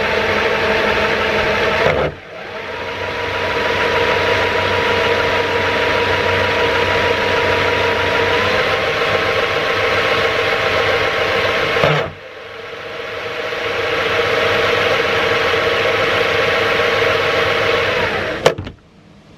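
Cordless drill running in its high-speed gear, spinning a 12 V DC motor used as a generator into a heater load. It labours under that load: the drill is 'not happy'. The run stops twice, about 2 s and 12 s in, each time winding back up over a couple of seconds, and cuts off with a click near the end.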